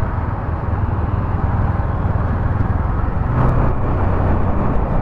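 Bajaj Dominar 400 motorcycle engine running steadily while riding, a low drone under rushing wind and road noise.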